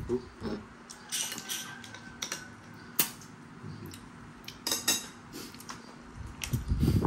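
Small snail shells clicking and tapping against a plate as they are picked up by hand, with slurps of snail meat being sucked out of the shells.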